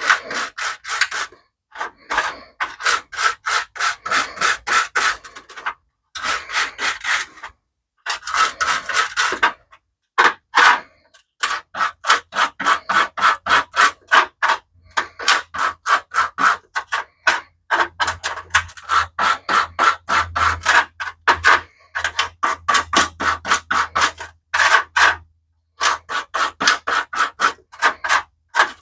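A small stiff wire hand brush scrubbed back and forth over a greasy metal exhaust heat shield, scraping off caked grime. Quick strokes, several a second, come in runs of a few seconds with short pauses between them.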